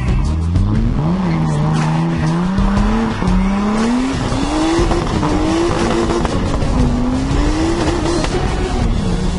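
A car engine accelerating hard. Its pitch climbs, then drops back at each gear change, several times over.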